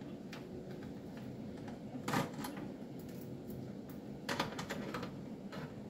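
Light clicks and rustling of small front-panel cable connectors being handled and pushed onto motherboard header pins inside a metal mini-PC case. The burst about two seconds in is the loudest and a little longer, and there is another a little past four seconds.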